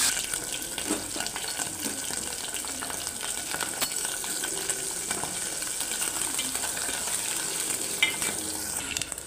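Food frying in hot oil in a metal pot: a steady sizzle with many small crackles and spatters. About eight seconds in, a sharp knock as a steel ladle stirs against the pot.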